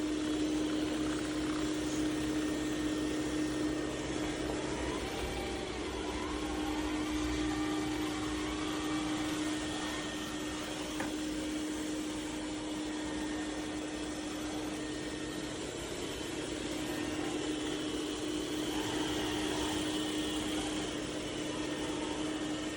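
MOVA P10 Pro Ultra robot vacuum system running: a steady motor hum with one constant tone over rushing air noise.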